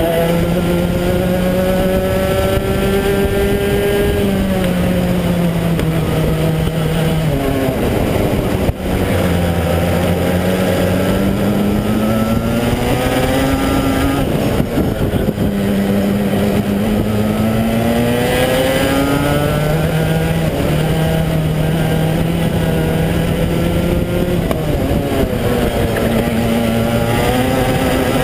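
Rotax racing-kart engine at full race pace. The revs climb along the straights and drop away into the corners several times, and there is a brief knock about nine seconds in.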